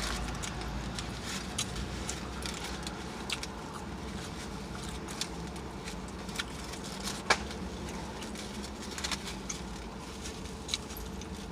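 Close-up mouth smacking and chewing while eating: irregular sharp wet clicks, a few louder ones, over a low steady hum.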